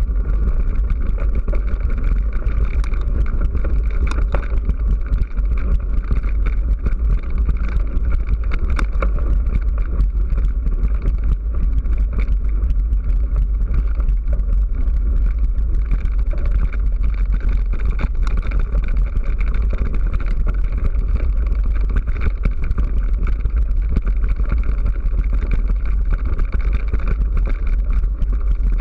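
Steady, loud rumble and rattle of a camera-carrying rider or machine travelling over a rough dirt and gravel track, with no clear engine note.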